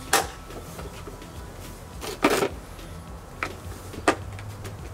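A few hard plastic knocks and clicks, spaced irregularly with the loudest a little past two seconds in, as a pond filter box and its perforated lid are handled and set in place.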